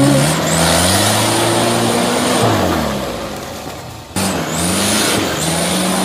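Off-road 4x4's engine revving up and then dropping back, with a thin high whine above it. About four seconds in the sound breaks off abruptly and resumes with the engine running at a steady speed.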